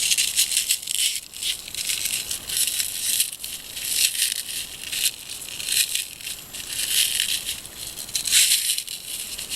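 Plastic shrink wrap being torn and peeled off a new crowbar by hand, crinkling and crackling in irregular bursts.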